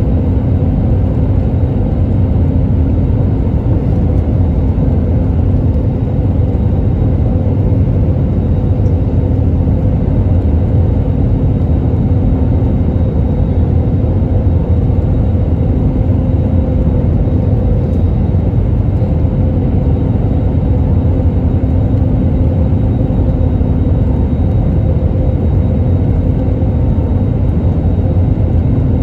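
Cabin noise inside an Airbus A320neo airliner on approach: a loud, steady rumble of airflow and engine, with an even low hum from its CFM LEAP-1A engines.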